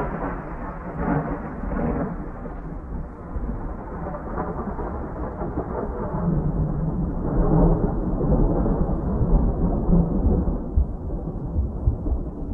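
Rolling thunder rumbling continuously over rain. The rumble grows heavier about halfway through and stays strong to the end.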